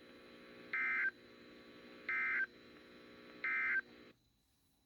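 NOAA Weather Radio SAME end-of-message signal: three short, identical bursts of digital data tones about a second and a half apart, marking the end of an alert broadcast. A faint low hum runs under them and cuts off suddenly about four seconds in.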